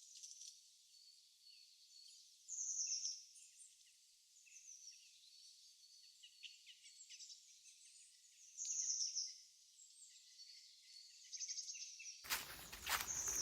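Songbirds calling in a forest: a short, rapid high trill repeated several times, with fainter chirps between. Near the end, footsteps crunching through dry fallen leaves start up.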